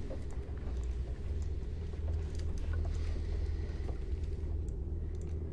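Low, steady rumble of a horror film's ambient sound design, with faint scattered clicks over it.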